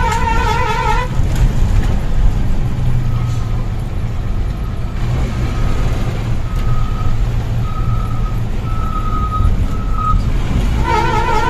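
Bus engine running with road rumble, heard from inside the bus. Through it, a short beep repeats about once a second, like a reversing alarm. Background music cuts out about a second in and comes back near the end.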